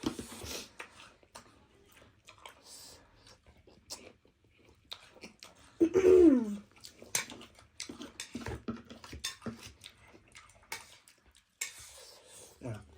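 Eating sounds: chewing, with cutlery clicking and tapping against dishes. About six seconds in comes a brief vocal sound with falling pitch.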